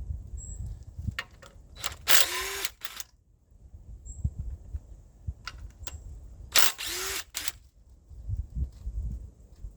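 A power tool run in two short bursts, about two seconds and six and a half seconds in, each ending with the motor winding down, amid scattered clicks and clanks of tools during engine disassembly.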